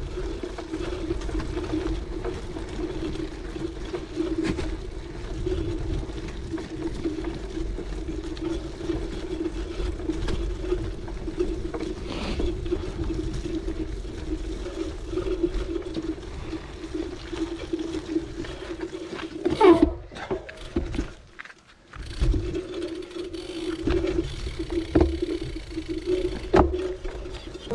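Cyclocross bike ridden along a dirt forest trail: tyre rumble and rattling over the ground with a steady hum. The sound dips almost away for a moment about twenty seconds in, then picks up again.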